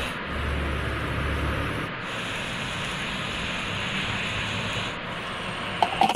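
Heavy rain falling steadily, with a low rumble of traffic for the first two seconds. Near the end, a few sharp clacks from handling the fuel nozzle at the pump.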